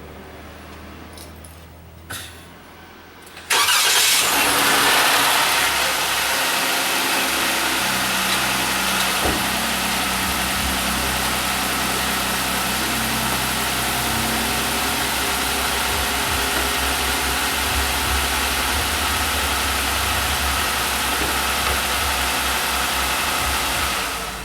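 2020 Ram 1500's 3.6-litre V6 engine cranking and catching about three and a half seconds in, running a little higher for a couple of seconds, then idling steadily on its first start after an oil change. It is shut off just before the end. A few light clicks come before the start.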